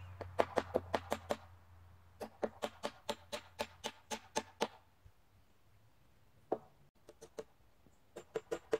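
Claw hammer driving 4-inch nails into the wooden studs of a wall frame: quick runs of sharp blows, several a second, then a pause broken by a single blow, with hammering starting again near the end.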